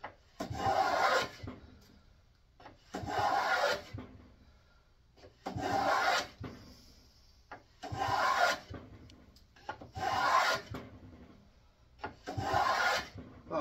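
Ohio Tool No. 28 wooden plough plane cutting a groove in a board: six steady push strokes, each about a second long, roughly every two and a half seconds. It is the sound of a freshly sharpened iron taking a full shaving, which is exactly what you want.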